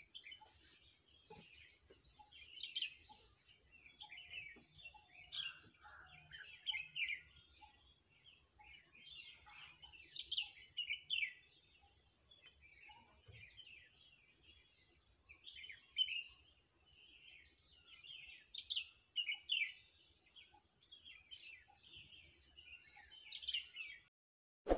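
Small birds chirping and calling in many short, high notes over a steady high-pitched hiss. The sound stops suddenly near the end.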